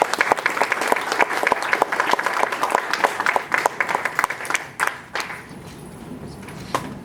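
Audience applauding: dense clapping that dies away about five seconds in, leaving a few scattered claps.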